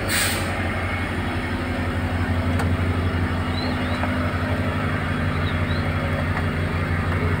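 A machine running with a steady low hum, with a second, higher steady tone joining about a second in.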